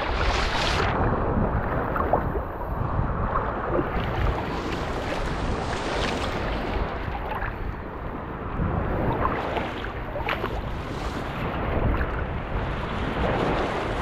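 Water sloshing and splashing around hands holding a juvenile Goliath grouper under the surface to release it. Wind rumbles on the microphone throughout.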